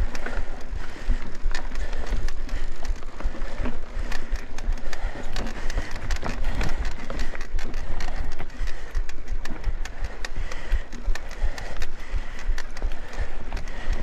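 Mountain bike riding over a dry, dusty dirt trail: steady tyre noise on loose dirt with frequent rattles and knocks from the bike over bumps, and low wind rumble on the microphone.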